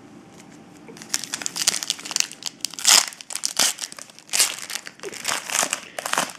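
Foil wrapper of a 2010-11 Upper Deck Artifacts hockey card pack being crinkled and torn open by hand. The rustling crackles start about a second in and are loudest near the middle.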